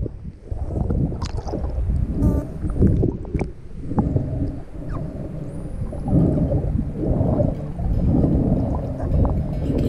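Underwater sound of water sloshing and gurgling around the camera, with a few sharp clicks and a faint high gliding whistle from pilot whales, which the swimmer describes as the whales "talking" to her with "meep, meep, meep".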